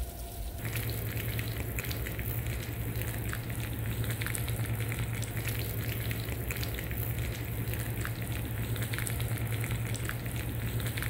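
Hot chicken pot pie, just out of the oven, sizzling and crackling steadily in its ceramic baking dish over a low steady hum; the sound starts about half a second in.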